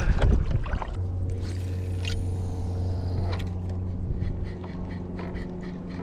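Wind buffeting the microphone for the first second, then a steady low mechanical hum.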